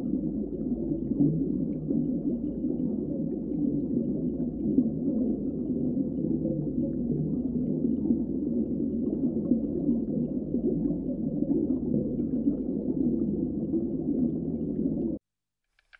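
Muffled underwater water noise: a steady, low, dull wash and gurgle, as heard under water in a tank. It cuts off suddenly about a second before the end.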